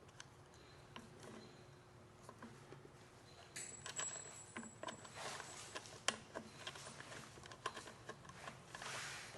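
Faint metallic clinks and rattles of bolts, washers and handle brackets being handled during assembly, growing busier from about three and a half seconds in.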